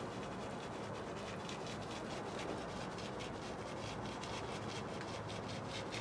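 Sand poured from above onto a smouldering stuffed toy to smother its flames: a steady grainy hiss with many faint ticks.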